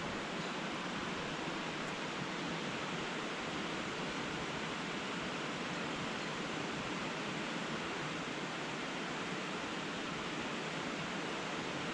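Rain-swollen river rushing steadily: an even, unbroken wash of running water.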